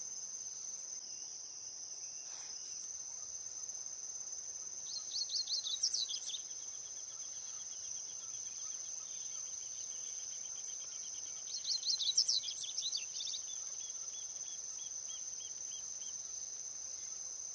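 Double-collared seedeater (coleiro) singing two phrases of its 'papa-capim' type song, about five seconds in and again about twelve seconds in. Each phrase is a quick burst of chirping notes that trails off into a long, even trill. A steady high-pitched insect drone runs underneath.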